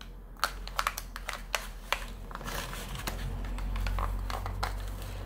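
Clear plastic blister tray of a Pokémon card multi-pack clicking and crackling as fingers pry at it to free the coin, in irregular sharp clicks.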